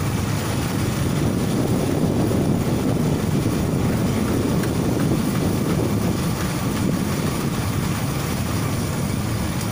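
Steady low rumble of a moving vehicle with wind buffeting the microphone, heard while riding in the open along a road.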